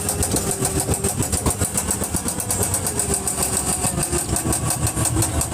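Ghost train car running along its track with a rapid, steady mechanical ticking.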